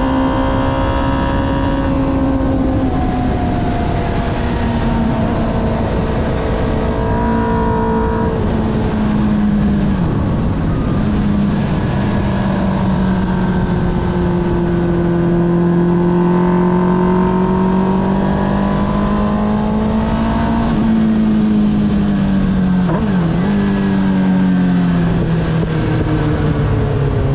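Engine of a track-day vehicle heard onboard, running hard through a lap. Its pitch sags and climbs again with lifts and gear changes, with a sharp dip and recovery about 23 seconds in.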